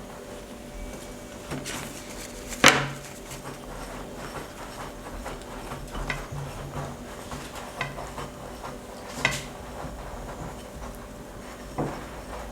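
Scattered knocks and clinks of dishes and utensils as rolls are coated in flour, egg and crumbs, with the sharpest knock about three seconds in and a few more later on.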